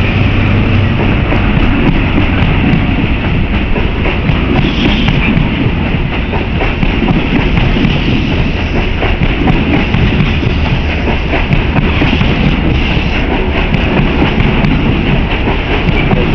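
East Coast HST (InterCity 125) train rolling past as it pulls away, a steady loud rumble of the coaches running on the rails, with a low engine hum that is strongest at the start.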